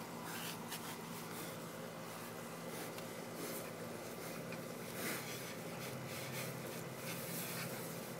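A wooden handle scratching and rubbing over a pig's bristly hide: faint, irregular rasping strokes.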